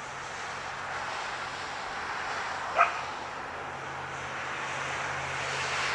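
A car passing on the road, its road noise slowly building, with a single short bark from a border collie about three seconds in as she runs to herd it.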